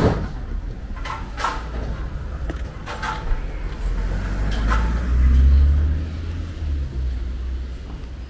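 A small car driving past close by, its low rumble swelling to a peak about five to six seconds in and then fading. A few short, sharp knocks sound before it, the first at the very start.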